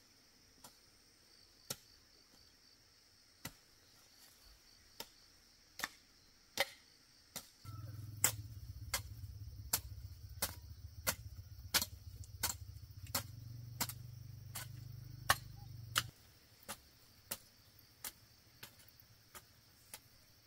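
A series of sharp knocks, about one a second, coming closer together, about two a second, in the middle. Under the middle knocks a low steady hum starts suddenly and cuts off suddenly.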